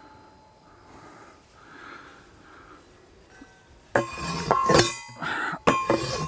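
Hand post driver hammering a fence post into the ground: after a quiet stretch, several sharp metallic clangs come in quick succession about four seconds in, each ringing on briefly.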